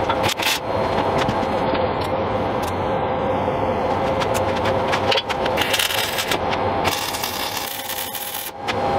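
Arc welding a steel bushing into place. The arc's crackling hiss starts about six seconds in and breaks off briefly near the end, over a steady machine hum.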